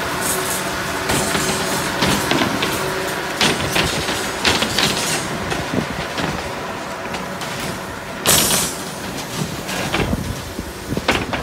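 Construction-site din on a rebar deck: a steady mechanical background with irregular metallic clinks and clanks of steel reinforcing bar being handled and tied. About eight seconds in comes a louder, brief rushing burst.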